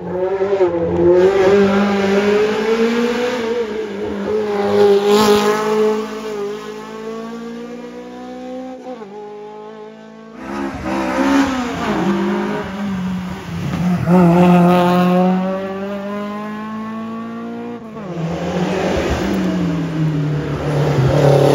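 Historic competition cars driven hard on a mountain hillclimb, engines revving and changing pitch through the gears as they pass, with some tyre squeal. The sound breaks off abruptly about ten seconds in and another car's engine takes over, and a further car rises loudly near the end.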